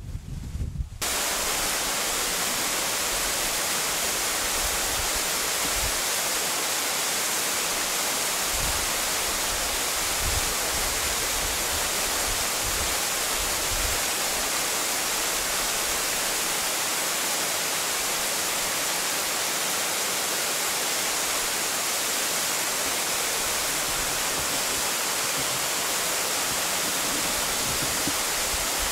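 Waterfall pouring into a rock pool: a steady, even rush of falling water that sets in abruptly about a second in, with a few low bumps underneath.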